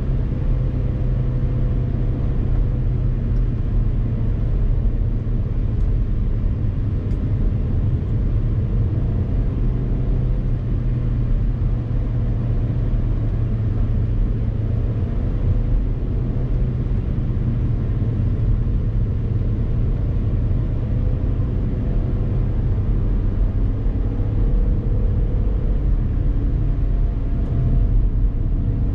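Car driving at a steady speed: a loud, steady low rumble of engine and road noise.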